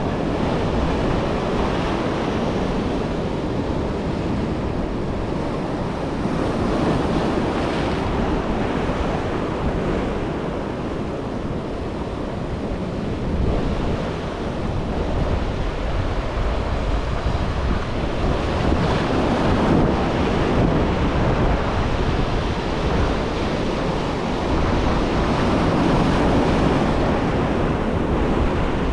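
Ocean surf breaking and washing up the beach, with wind buffeting the microphone. The rush swells louder and eases off in slow surges as the waves come in.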